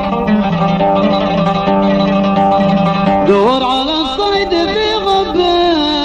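Instrumental Middle Eastern music: a plucked string instrument plays the melody over held, sustained notes.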